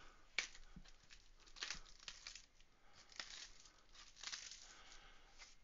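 Cardboard box packaging being opened and handled by hand: faint rustling and crinkling in short bursts, with a sharp click about half a second in.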